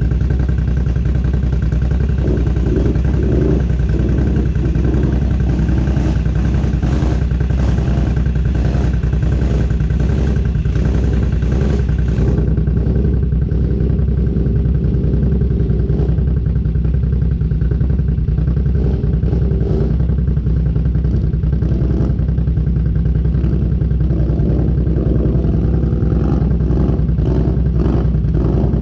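Off-road vehicle's engine running at a steady, nearly constant pitch, with bursts of rattling knocks over it.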